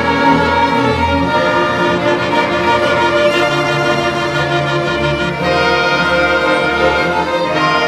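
Instrumental ensemble with bowed strings playing a hymn tune in sustained chords that change every few seconds.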